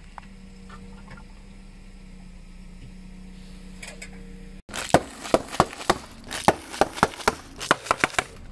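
A low steady hum, then, about four and a half seconds in, a car tyre rolling over bags of potato chips: a quick run of sharp cracks and crunches as the chips shatter and the bags crackle.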